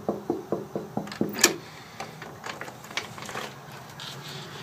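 Knuckles rapping quickly on a wooden door, about five knocks a second for a second and a half, followed by a few lighter taps and clicks as the door is handled.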